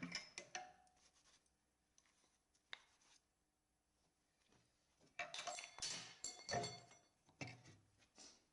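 Metal engine parts and tools being handled on a workbench: a few light clicks, then a run of metallic clinks and clatters with a brief ringing about five seconds in.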